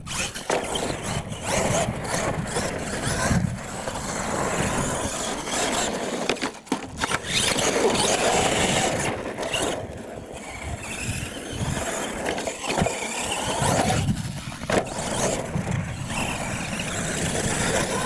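Radio-controlled monster truck driving and jumping on a dirt track: its motor whines up and down with throttle over the tyre noise, with an occasional knock as it lands.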